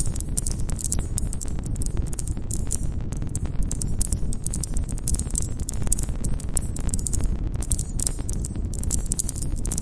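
Wood campfire crackling: a dense, steady stream of sharp pops and snaps over a low rumble of burning logs.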